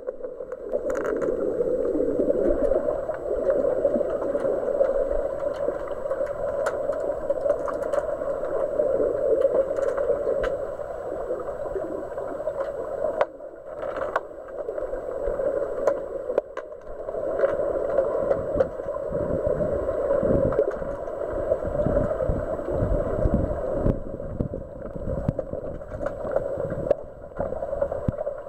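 Muffled underwater sound from a camera in a waterproof housing: a steady, dull rushing of water and bubbles, scattered with sharp clicks and knocks, with heavier low thumps in the second half as the players kick and scrap for the puck.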